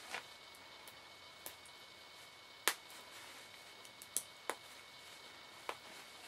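Snap fasteners on a baby bodysuit's crotch being pressed shut one by one: about six sharp, separate clicks at irregular intervals, the loudest a little before the middle.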